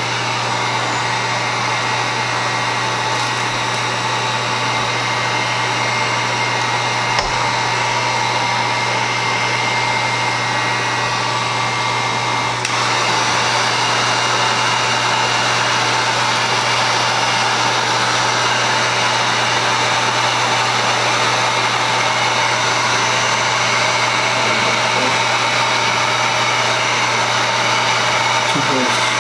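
Electric heat gun running steadily, its fan blowing with a low hum, a thin whine and a hiss, held over a fresh resin pour to pop bubbles. About halfway through, the rush grows slightly louder and breathier.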